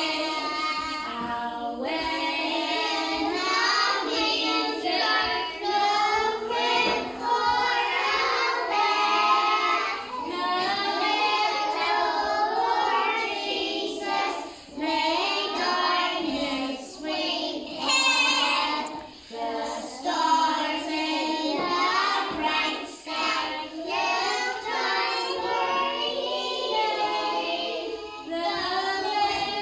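A group of young nursery children singing together.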